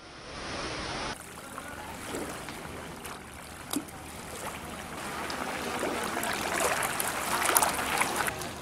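Godavari floodwater rushing and washing, a steady noisy wash that grows louder in the second half, with a few small clicks and knocks.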